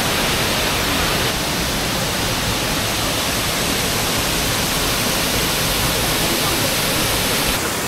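Rushing water of a mountain creek and its falls, a loud steady roar. Its tone shifts abruptly a little after a second in and again near the end.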